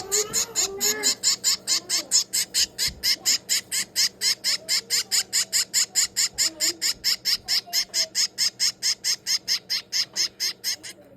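Baby finch, 22 days old, giving rapid high-pitched begging calls while being hand fed, about five calls a second in an even train. The calls stop abruptly near the end.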